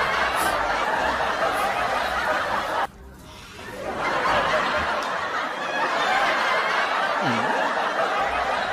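Laugh track of an audience laughing, breaking off briefly about three seconds in and then carrying on.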